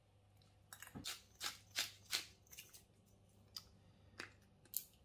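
Handheld glass seasoning grinder twisted over a plate of food: a run of short, crisp grinding rasps about two a second, then a few lighter clicks.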